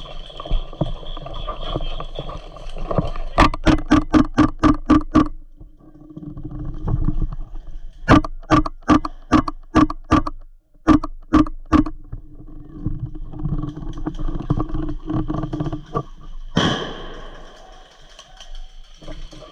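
Airsoft gun firing quick single shots in three strings, about ten, then seven, then four sharp cracks at roughly five a second, with a brief rush of noise near the end.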